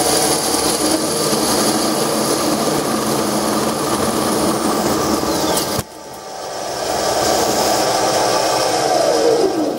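Mini lathe running fast in reverse while an upside-down carbide parting insert cuts off an aluminium bar: steady cutting and motor noise with a high whine. About six seconds in there is a sharp click and the sound drops away, then builds back up. Near the end the pitch falls as the lathe slows down.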